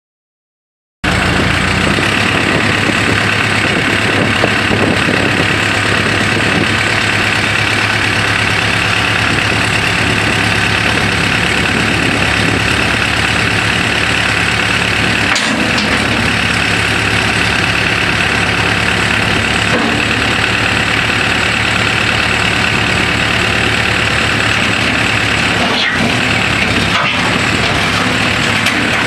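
Case four-cylinder diesel engine of a 2006 Case 580M Series II backhoe idling steadily, cutting in abruptly about a second in.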